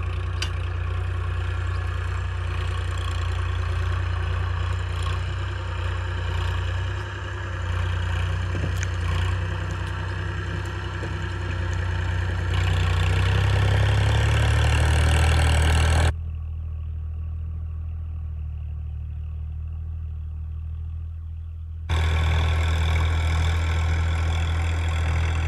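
Massey Ferguson 7250 tractor's three-cylinder diesel engine running steadily under load as it pulls a reversible mouldboard plough through stubble. For about six seconds past the middle the sound turns muffled, leaving only the low engine drone, then comes back full.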